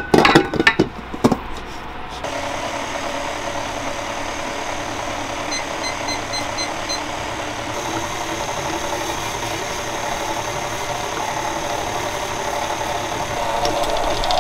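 A stainless steel mixing bowl clanks several times as it is set onto a stand mixer, then about two seconds in the mixer's motor starts and runs steadily, mixing flour into dough. It gets slightly louder near the end.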